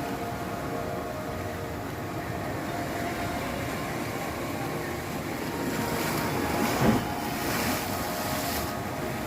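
Sea waves surging against rocks as a steady wash, with a bigger wave breaking about six seconds in: a sharp crash near seven seconds, then hissing spray and foam washing off the rocks.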